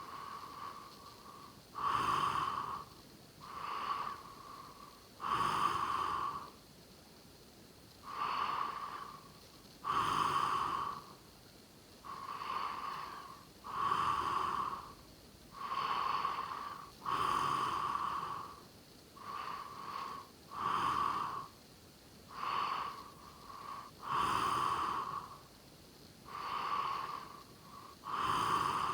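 A sleeping person snoring: about sixteen noisy breaths, each under a second long and coming roughly every one and a half to two seconds, alternating louder and softer, with a whistling edge to each.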